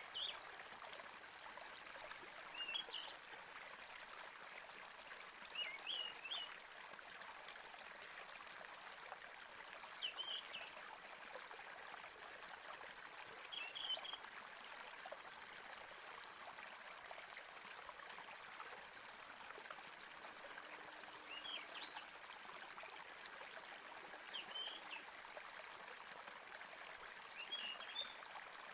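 Faint, steady stream-like running water, with a short high chirping call that comes back every few seconds, about eight times.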